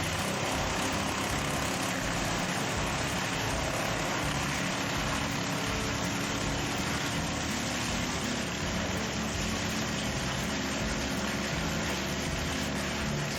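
A large machine engine running steadily, with a constant mechanical noise.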